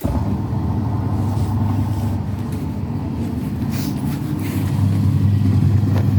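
Washing machine spinning: a steady low hum from the motor and drum, with a few faint clicks.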